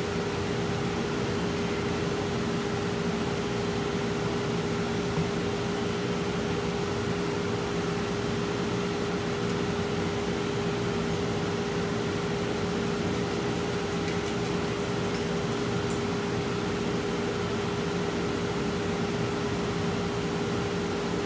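Steady machine hum with one held mid-pitched tone, unchanging throughout, with a single faint tap about five seconds in.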